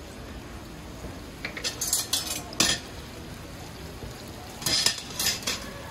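Metal tongs clacking against a steel batter bowl and a wok's wire rack in two short flurries about two seconds apart, over the steady hiss of battered food deep-frying in oil.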